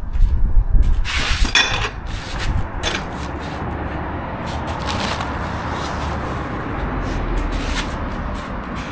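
Scraping and rubbing of metal trailer parts and packaging being handled and moved, with a loud burst of scraping about a second in, over a low rumble.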